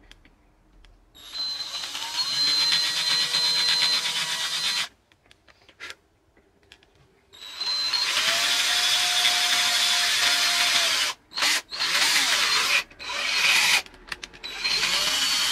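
Cordless drill boring holes through the tough plastic of a universal rear bumper diffuser: a steady motor whine in a run of about three and a half seconds, a pause, another long run, then several short bursts near the end.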